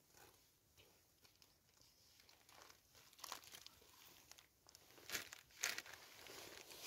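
Plastic food packaging crinkling as it is handled, in short bursts about three seconds in and again around five seconds in.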